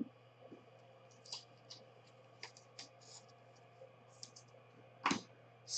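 Faint, irregular keystrokes on a computer keyboard, a few light clicks spread out with pauses between them, and one louder click near the end: the hit list being updated.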